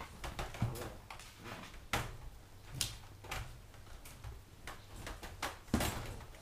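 Weimaraner puppies scuffling inside a wire dog crate: irregular knocks and rustles from paws and bodies against the crate and its bedding, with the loudest knock near the end.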